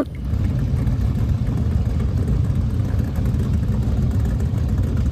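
Speedboat engine running steadily, a low rumble with little change in pitch.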